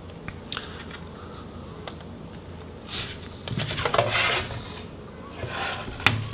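Plastic display parts of a Lenovo Y50-70 laptop being handled. A few light clicks come first; from about three seconds in there is rubbing and scraping as the back cover and LCD panel are lifted and moved, and a sharp click comes near the end.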